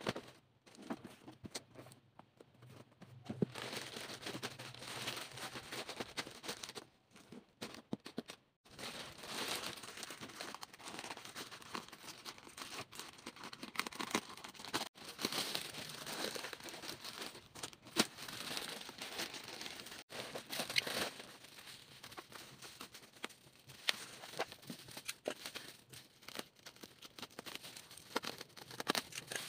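Packaging being opened by hand: a plastic courier mailer and bubble wrap crinkling and tearing as they are handled and slit with a snap-off box cutter, with scattered sharp clicks. The handling pauses briefly about seven seconds in.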